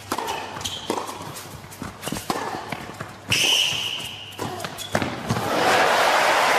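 Tennis rally on an indoor hard court: a serve and racket strokes on the ball in sharp pops, with players' footsteps and a brief high squeal about three seconds in. Near the end the crowd applauds the won point, cut off abruptly.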